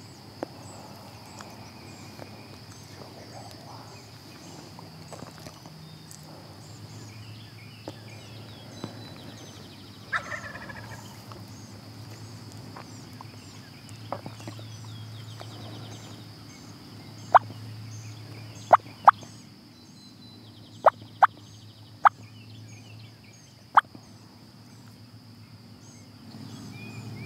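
Rio Grande wild turkey calling, with a gobble and a run of seven short, sharp clucking notes in the second half.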